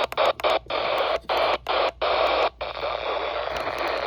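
Radio static: a steady hiss from a radio receiver tuned to an emergency alert broadcast, cutting out to silence for brief moments several times during the first two and a half seconds.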